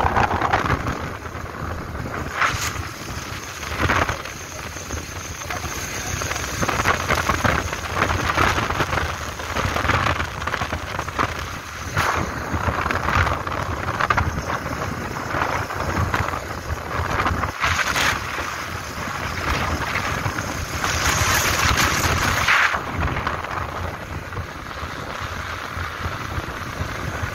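Wind rushing over a phone's microphone on a moving motorcycle: a rough, gusty rumble that swells and fades, with the motorcycle's road and engine noise beneath.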